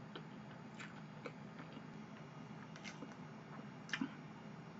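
Quiet chewing of chocolate cake, with a few faint clicks of mouth and fork, the loudest about four seconds in, over a low steady hum.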